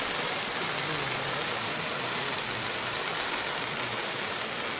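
A row of hanging waterfall fireworks spraying sparks, making a steady, even hiss.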